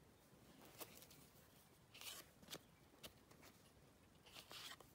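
Near silence, broken by a few faint clicks and rustles of baseball cards being handled and shuffled.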